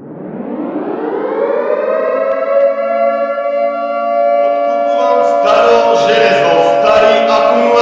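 Civil-defence-style siren winding up, its pitch rising over the first second or so, then holding a steady chord of several tones. About five seconds in, a rhythmic musical layer pulsing about twice a second joins over the siren.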